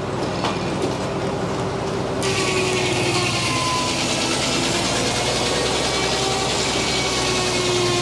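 Frick sawmill's large circular head saw and its belt drive running, then from about two seconds in the blade cutting lengthwise through stacked poplar cants: the sound turns suddenly louder and hissier and stays so as the board is sawn off.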